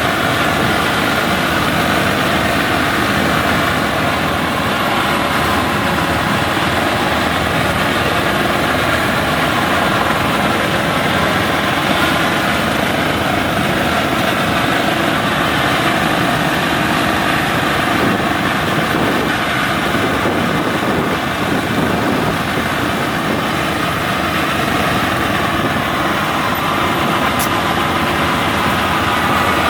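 Vehicle engine running steadily and loudly, with no change in speed or load.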